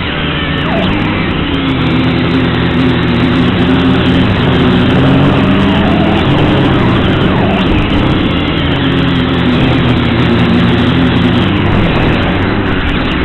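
XK X250 quadcopter's motors and propellers buzzing in flight, the pitch rising and falling as the throttle changes.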